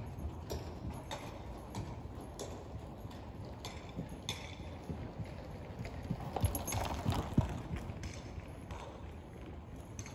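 Hoofbeats of a horse circling on a lunge line over the soft dirt footing of an indoor arena: a steady run of soft strikes about every half second, with a few louder thumps a little past the middle.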